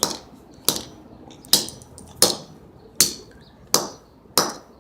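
Seven sharp knocks in a steady rhythm, about one every three-quarters of a second, each with a brief ring: a broken wristwatch being struck with a hard tool to break it open.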